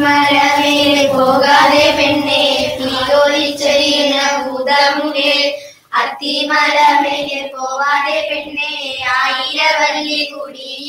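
Young girls singing a song with long held notes, pausing briefly about six seconds in.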